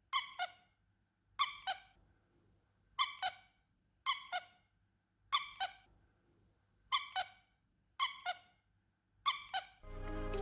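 A squeaky dog toy squeezed and released over and over, about eight times, each squeeze giving a quick double squeak. Background music fades in near the end.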